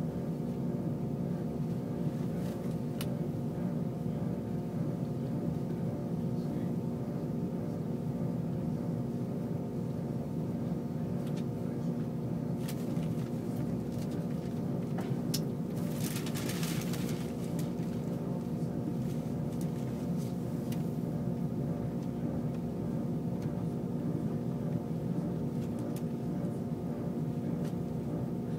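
Cabin noise of an ICE high-speed train running at speed: a steady rumble under a hum of several steady tones, with a few light clicks and a short rushing hiss about sixteen seconds in.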